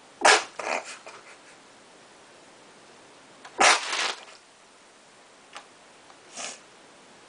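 Two loud, sharp nasal blasts about three seconds apart, then a fainter one near the end: a man sneezing through his nose with his mouth shut and full of Calpis.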